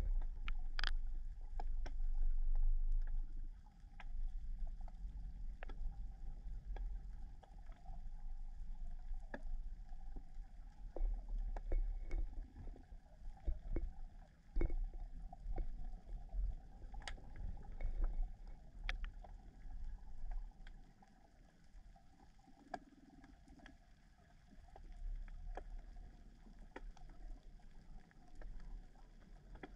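Muffled underwater rumble of moving water around a submerged camera, swelling and easing, with scattered sharp clicks throughout; it eases off for a few seconds about two-thirds of the way in.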